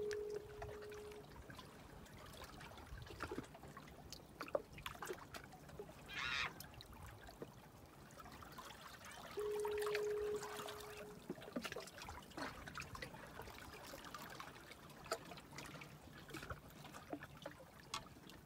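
Sea water trickling and lapping among shoreline rocks. A foghorn sounds a steady low tone for about a second, with a fainter tail, at the start and again about ten seconds later, at an even ten-second interval. A short rushing sound of water comes about six seconds in.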